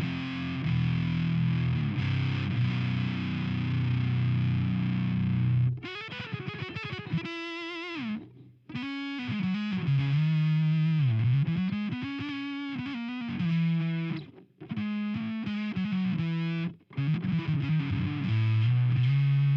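Electric guitar through an Acid Rain Pedalworks Judas, an HM2-style distortion blended with fuzz, playing a heavily distorted metal rhythm. About six seconds in, it gives way to a single-note lead line with bends and vibrato, in phrases with short breaks. The heavy rhythm returns near the end.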